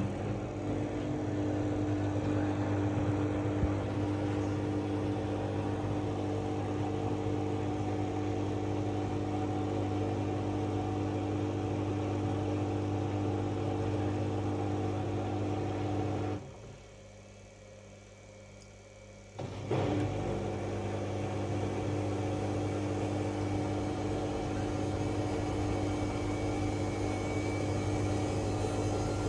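Washing machine running with a steady, loud hum made up of several steady tones. It breaks off for about three seconds past the middle and comes back with a click.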